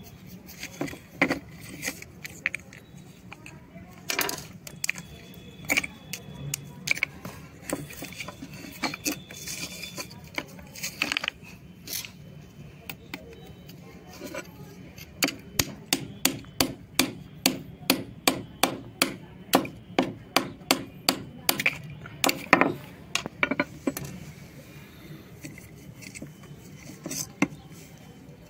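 Thin shale slabs clacking and snapping as they are handled and broken by hand. About halfway through, a long knife strikes and slices into the edge of a shale slab in a quick, regular run of sharp strokes, about two to three a second, for several seconds.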